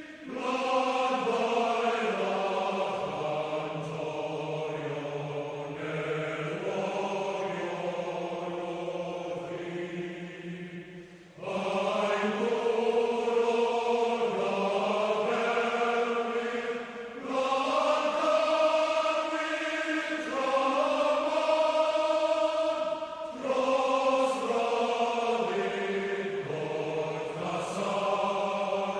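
A choir singing slow, long-held phrases, with short pauses between the phrases.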